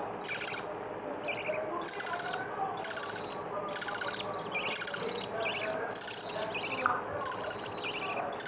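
Three-day-old lovebird chicks giving raspy, buzzing begging calls, short high-pitched bursts repeated about once a second.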